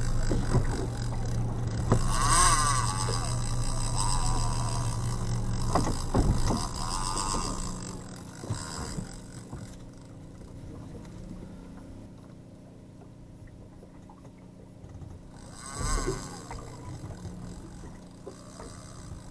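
Suzuki outboard motor running low and steady, with wind and water noise on the microphone; the engine sound falls away about eight seconds in.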